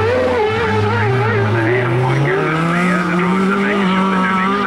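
Ford Escort rally car's engine under load through a tight chicane, its note climbing about two seconds in, with wavering tyre squeal over it.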